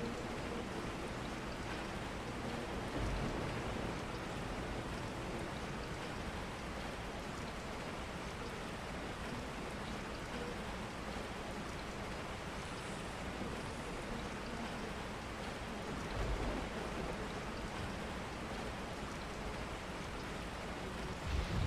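Steady rain falling, an even hiss of drops, with a few brief low swells of rumble.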